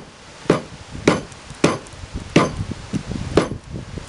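Hammer striking wooden boards to drive a finger joint together: about five sharp knocks, roughly one every three-quarters of a second.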